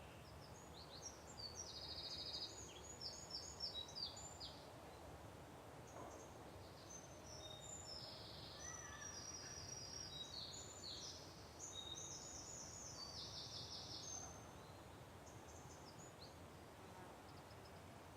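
Songbirds singing faintly: quick high chirps and short trills, busiest in the first half, stopping about fourteen seconds in, over a faint steady background hiss.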